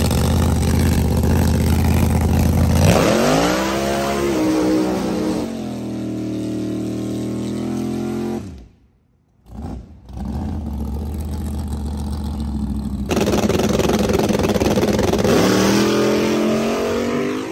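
Drag-race engines running loud at the start line, revving up sharply a few seconds in and again near the end, during burnouts and staging; the sound drops out briefly just past halfway.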